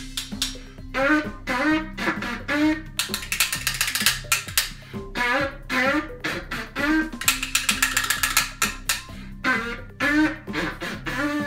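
Small coiled brass horn blown in short phrases of notes that scoop upward in pitch. Two stretches of fast clicking fall between the phrases.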